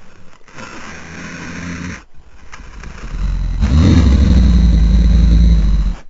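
Designed monster roar for a T. rex–Godzilla hybrid kaiju, layered from big-cat, dinosaur and monster calls. A pitched growl runs for about two seconds, then after a short break a loud, deep roar swells, its pitch rising and falling, and cuts off sharply at the end.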